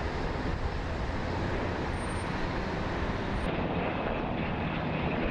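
Helicopters flying overhead: a steady rush of rotor and engine noise.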